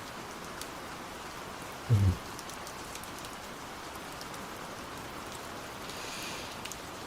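Steady rain falling, with a person's slow, close breathing over it: one short low puff of breath about two seconds in, the loudest sound, and a faint soft breath about six seconds in.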